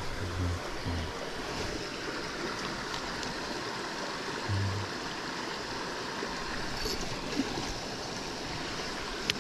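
Flowing river water, a steady even rush.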